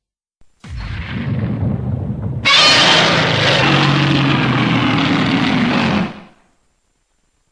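Heisei-era Godzilla roar sound effect: a rough, lower growl starts under a second in, then a loud, harsh, pitched roar takes over about two and a half seconds in and holds for three and a half seconds before it dies away.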